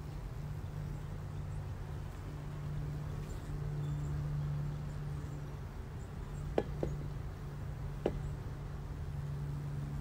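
A low, steady hum that swells and fades, with three sharp clicks: two close together about two-thirds of the way in and a third about a second and a half later.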